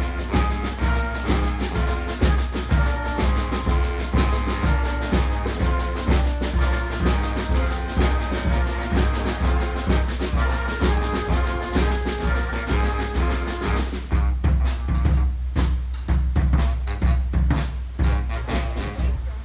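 Street brass band playing a driving tune, horns over a steady bass drum and snare beat; about three quarters of the way through the horns drop out, leaving the drums playing alone.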